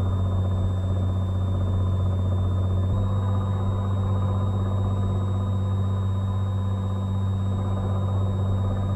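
Cessna 182's piston engine and propeller droning steadily in the cabin on short final, with a slight shift in pitch about three seconds in as power is adjusted.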